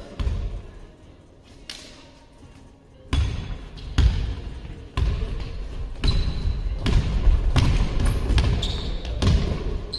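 Basketball dribbled on a gym floor: a single bounce at the start, then bounces about once a second from around three seconds in, with a few short sneaker squeaks in the second half.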